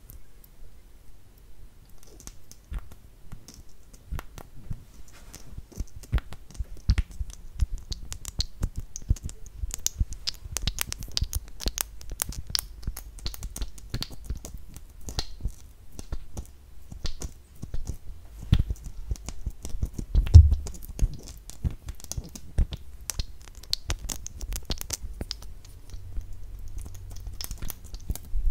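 Close-miked wet mouth sounds and lip gloss application, a dense run of crackly clicks and smacks, with soft low bumps against the microphone and one louder thump about twenty seconds in.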